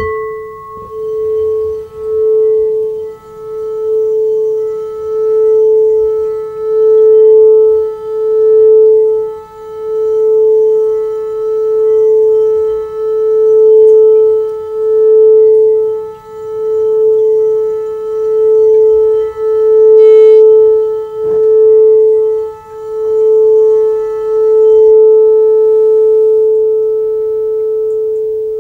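Frosted quartz crystal singing bowl tuned to A, sung by circling a mallet around its rim. One steady tone swells and dips in waves about every second and a half, then rings on evenly and begins to fade near the end once the mallet comes off.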